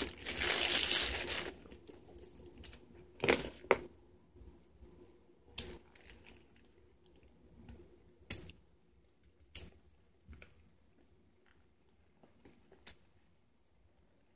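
Metal clasps and hardware on a handbag's detachable straps clicking and clinking as the straps are handled and clipped on, about seven sharp clicks spread out with pauses between. A brief rustle in the first second or so.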